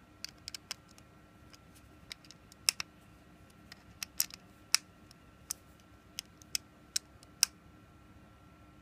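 About fifteen sharp, irregular clicks and taps of a precision Torx screwdriver bit on the tiny back-cover screws and plastic case of a Pebble smartwatch as the screws are retightened.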